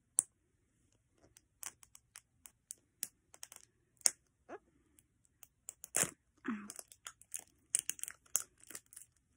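Fingernails picking at a round plastic toy capsule and peeling its clear plastic film: a run of sharp clicks, crinkles and small tearing sounds, growing busier near the end.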